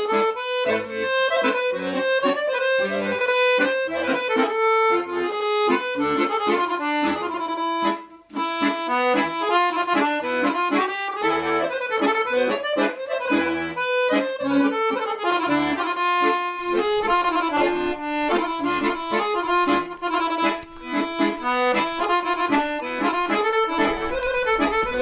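Background accordion music playing a tune of quick successive notes, with a momentary break about eight seconds in.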